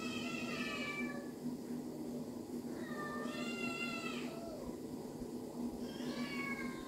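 Kittens meowing: three drawn-out, high-pitched meows, each about a second or more long, the second about halfway through and the third near the end, over a steady low hum.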